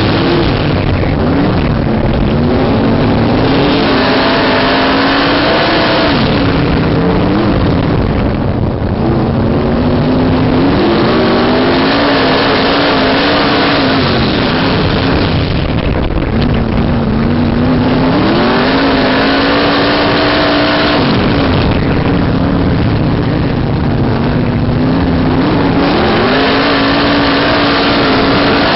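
Winged dirt-track sprint car's V8 engine heard from on board at racing speed. Its pitch climbs as the throttle opens, holds, then falls away when the driver lifts for the corner, a cycle that repeats about every seven seconds over a constant rush of wind and engine noise.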